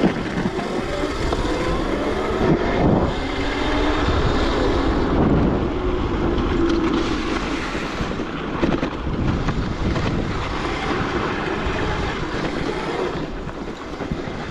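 Wind rushing over the microphone of a moving 72-volt Razor electric dirt bike, with the faint whine of its electric hub motor rising and falling as the throttle changes.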